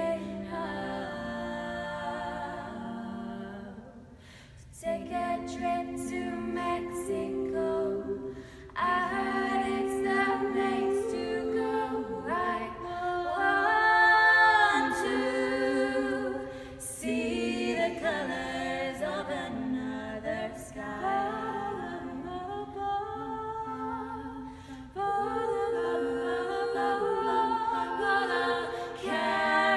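Four women's voices singing a cappella in close harmony in a stone chapel, dropping to a hush about four seconds in and swelling loudest around the middle.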